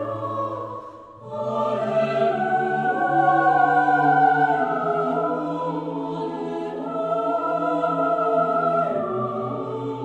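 Choral music with long held chords that shift from one to the next, dipping briefly about a second in.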